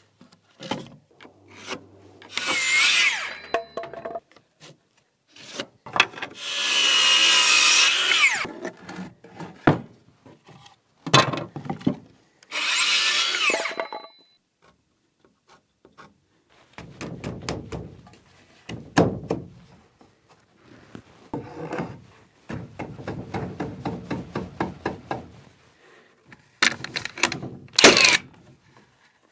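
Power tools working wood: three short runs of a few seconds each, then stretches of quick, repeated rasping strokes.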